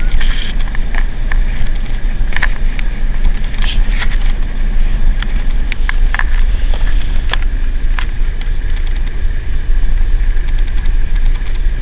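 Car driving, heard from inside the cabin: a steady low rumble of engine and road, with scattered sharp knocks and rattles.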